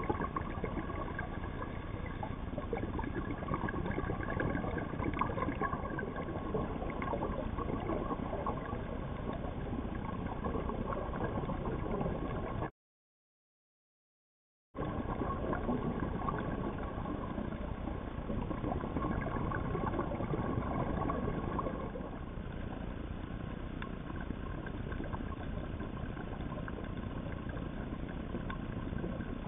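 Steady underwater hum and hiss picked up through an underwater camera housing, with an engine-like drone in it. It cuts out completely for about two seconds midway, and is a little quieter in the last third.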